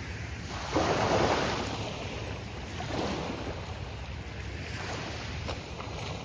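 Gulf of Mexico surf: waves breaking and washing on a sandy beach, the loudest breaking a little under a second in and a smaller one about three seconds in, with wind rumbling on the microphone.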